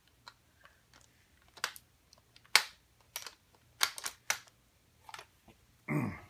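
Metal hand tools clicking and clinking irregularly against a power drill's chuck as a wrench is fitted onto it, with a few sharper knocks in the middle and a short grunt or word near the end.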